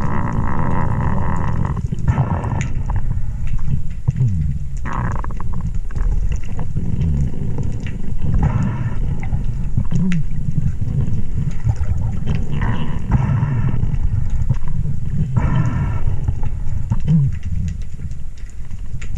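Steady low rumble of water noise, with a short rushing sound coming back every few seconds.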